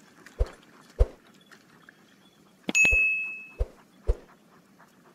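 Subscribe-button overlay sound effect: two sharp mouse clicks, then a bright bell ding about three seconds in that rings for under a second, then two more clicks.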